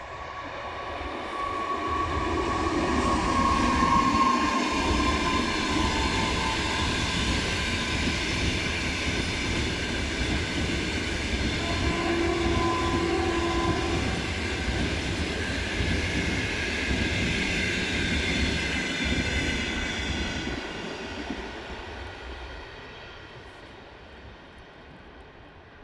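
A fast passenger train hauled by an EP2K electric locomotive passes by. It rumbles and clatters louder over the first few seconds, holds steady for about fifteen seconds, then fades away. A short steady tone sounds about twelve seconds in.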